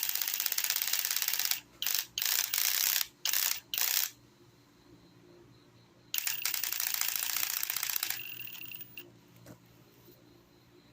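WORX 369.2 cordless impact drill's adjustable torque clutch ratcheting in rapid clicks as the motor spins on its lowest clutch setting, the sign that the set torque has been reached and the screw is seated. It comes in a series of short bursts, then after a pause one longer burst that fades out.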